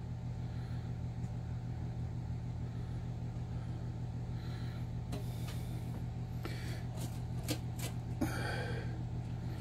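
A steady low hum, with a few faint clicks and soft rustles in the second half as a stainless steel meat injector is squeezed into a raw pork roast and pulled back out.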